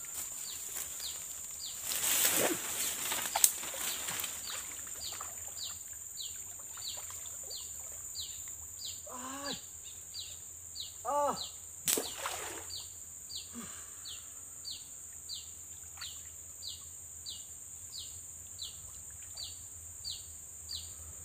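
Water splashing and sloshing as a person wades into a muddy swamp pond, loudest about two seconds in, over a steady high insect buzz and a short high chirp repeating about one and a half times a second. A couple of short calls are heard near the middle.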